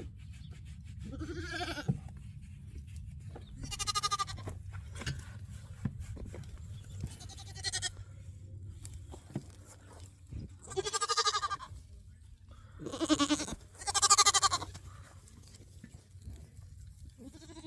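Goats bleating: six separate, wavering calls of a second or less, the last two close together. A steady low hum runs underneath.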